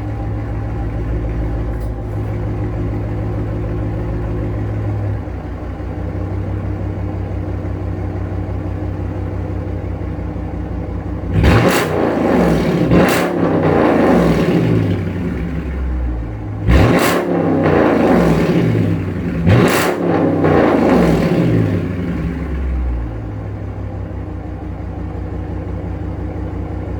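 V8 car engine with a muffler-deleted exhaust idling, then revved in several sharp blips through the middle, the pitch dropping back after each, before settling back to idle.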